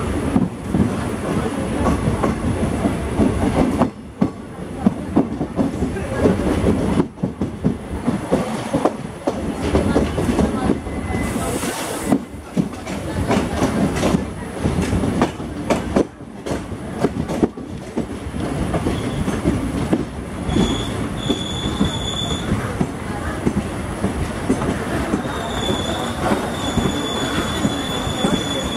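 Indian Railways passenger train rolling into a station, heard from an open coach door: a steady clatter of wheels over rail joints and points, with the other train's coaches running past on the next track. From about two-thirds of the way through, a high, steady squeal comes and goes as the train slows for its halt.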